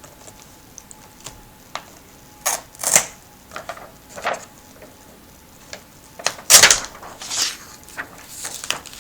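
Handling noise: scattered small clicks and a few short, rasping rustles of masking tape being pulled and torn, with small plastic laptop parts handled alongside.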